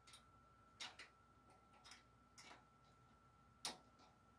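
Faint scattered clicks and taps of a speaker-wire banana plug being handled and pushed into a stereo receiver's speaker terminals, the sharpest click about three and a half seconds in. A faint steady high whine runs underneath.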